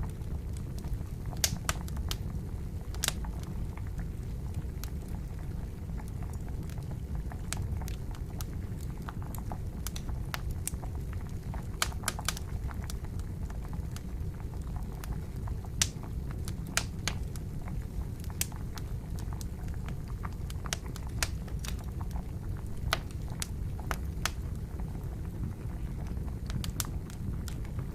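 Wood campfire crackling, with sharp pops at irregular intervals over a steady low bubbling of boiling water.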